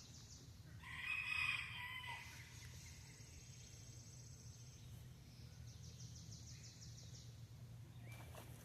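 A rooster crowing once, about a second in, heard faintly at a distance.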